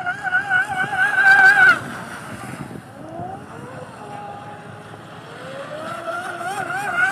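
Radio-controlled speedboat's small motor whining at high revs, its pitch wavering as the hull skips over the water. It is loudest as the boat passes close about a second in, then drops off. It rises again from about five seconds as the boat comes round toward a second pass near the end.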